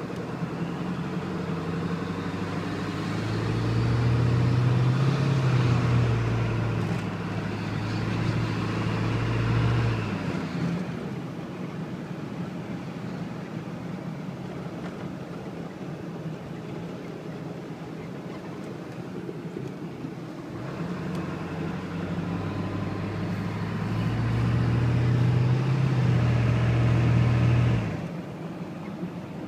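1997 Ford F-250's 7.3 L Powerstroke V8 turbodiesel running cold. It is brought up to a higher, steady speed twice for several seconds each time and drops back to idle in between. The turbo makes a loud noise when the engine is cold, a noise whose cause the owner does not know.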